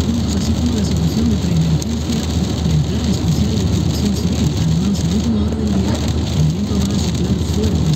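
Car interior at motorway speed in heavy rain: steady engine and tyre noise with rain on the windscreen. Over it runs a low voice that wavers continuously in pitch.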